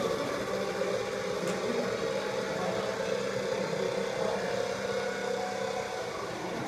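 Steady mechanical whirring hum, unchanging, with no distinct clanks or impacts.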